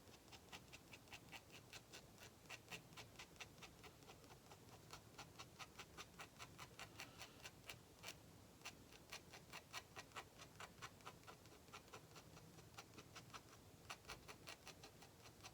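Dip pen nib scratching short, quick hatching strokes on drawing paper: a faint tick with each stroke, several a second, with brief pauses.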